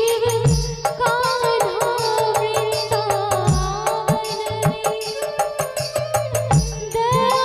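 Instrumental interlude of a Hindi devotional bhajan: a held, wavering melody line over a steady percussion beat, with deep drum hits about every three seconds.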